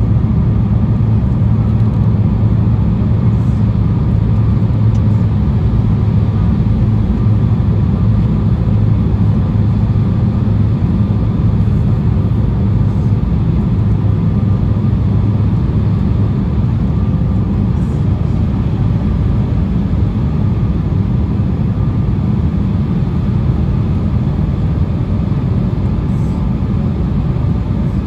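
Steady cabin noise inside an Embraer E175 airliner on approach with its landing gear down: the rush of its General Electric CF34 turbofans and the air over the fuselage as an even low rumble, with a faint steady hum on top.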